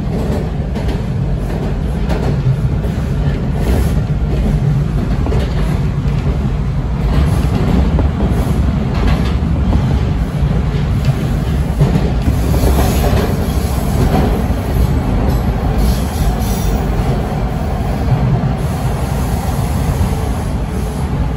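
Toronto TTC Line 2 subway train, a Bombardier T1, heard from inside the car running at speed as it goes from the open viaduct into the tunnel: a steady, loud rumble of steel wheels on rail, with a faint wheel squeal around the middle.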